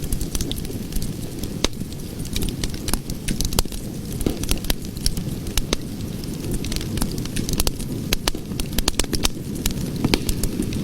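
Cooking fire burning: a steady low rushing noise with many sharp crackles and pops at irregular intervals.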